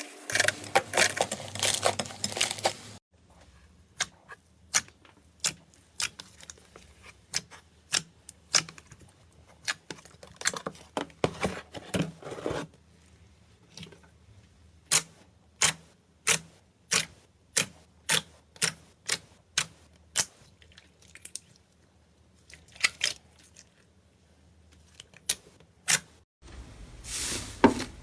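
Slime being squeezed and pressed by hand, making sharp clicks and crackles, dense at first, then single clicks about one a second, growing dense again near the end.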